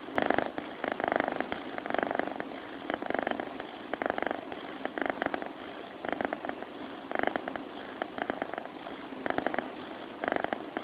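Sleeping cat purring, a rasping pulse that swells in bursts about once a second with each breath.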